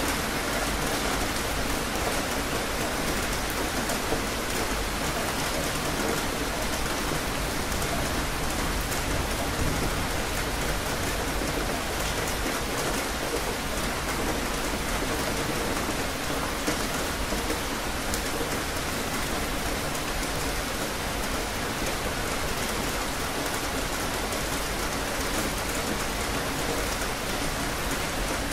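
Steady rain falling and spattering on surfaces, an even hiss of drops with a few sharper ticks.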